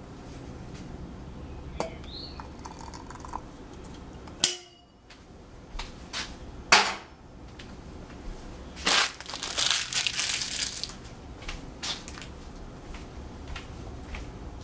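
Kitchen handling sounds: scattered clinks and knocks as a plastic tea strainer is set onto a ceramic teapot, the loudest about four and a half and seven seconds in, followed by a stretch of rustling.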